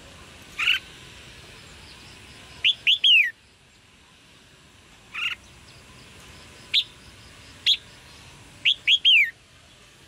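Red-whiskered bulbul giving sharp chirping calls: several single chirps and, twice, a quick run of two short chirps ending in a longer downslurred note. This is the chirping call used to spur male bulbuls into song.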